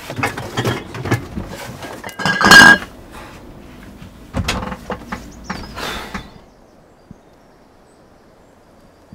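Glass bottles clinking and knocking together as they are taken out of a fridge, with the fridge door and shelves handled; the loudest, ringing clink comes about two and a half seconds in. The clatter stops about six seconds in, leaving a faint low hum.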